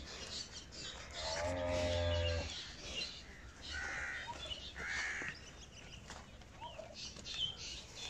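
A cow moos once, a low call lasting about a second that starts about a second in.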